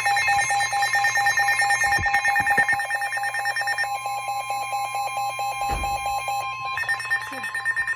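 Emergency Alert System alert tone: a loud electronic alarm with a fast, even pulsing. The mix of tones changes about four seconds in and again near the end.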